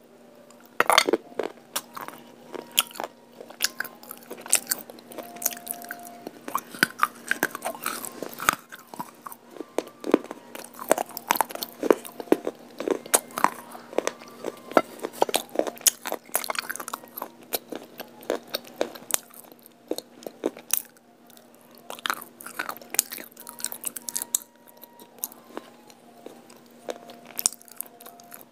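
Close-miked biting and chewing of brittle baked clay (kulhad and broken clay pot pieces): dry, sharp crunches in quick, irregular succession, thinning out for a few seconds past the middle.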